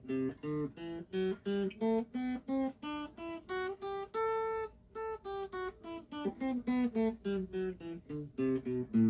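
Electric guitar playing a scale one picked note at a time, climbing to a held top note about four seconds in, then coming back down.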